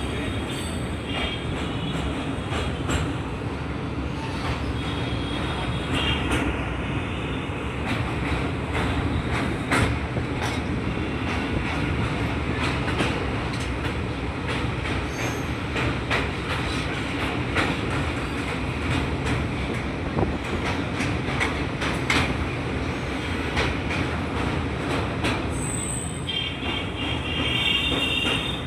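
Moving train running along the track: a steady rumble with frequent sharp clicks of the wheels over rail joints. A high wheel squeal comes in the first second or so and again near the end.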